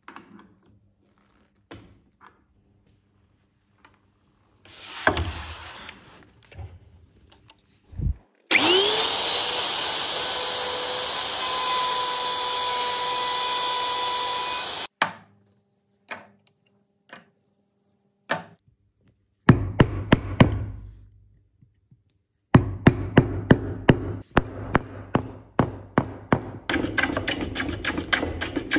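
Bosch plunge router spinning up with a rising whine, then running steadily for about six seconds as it routes an inlay recess in solid oak, before it is switched off. Later comes a run of sharp knocks, a few per second, and near the end quick rasping strokes of a hand plane shaving the oak.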